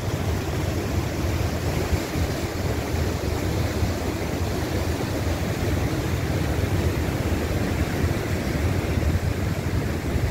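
Creek in high flow rushing over rapids: a steady, unbroken whitewater rush.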